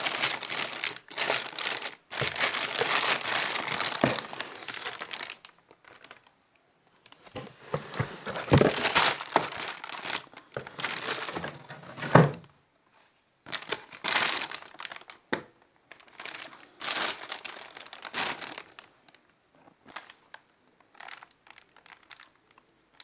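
Packaging being unwrapped by hand from a new ceiling fan's parts, crinkling and rustling loudly in several bouts with short pauses between them.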